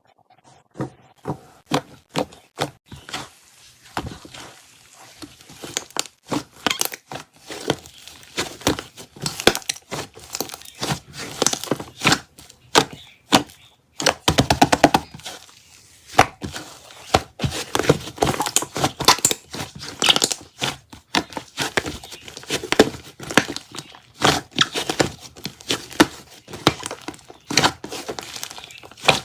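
Slime being squeezed and pressed by hand, giving a dense, irregular run of loud crackling clicks and pops as air pockets burst.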